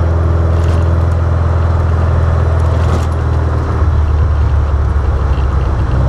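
Engine of a Birkin Seven open sports car running steadily under way, with road and wind noise. The low engine note shifts a little about two-thirds of the way through.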